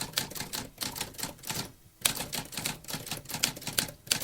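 Typewriter keys clacking in a quick run of keystrokes, about five a second, with a brief pause about two seconds in before the typing resumes.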